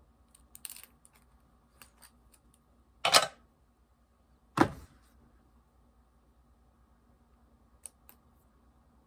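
Fidget toys being handled: scattered light clicks and taps, with two louder knocks about three and four and a half seconds in.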